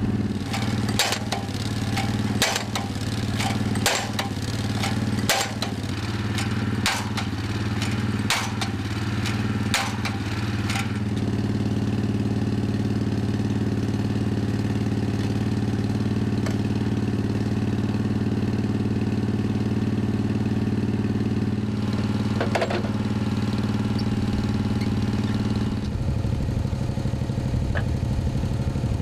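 Dando Terrier MK1 drilling rig's engine running steadily while its percussion hammer strikes the drive tube about eight times, roughly once every second and a half, driving it into the ground; then the engine runs on alone, with a single knock later and a rougher, changed engine note near the end.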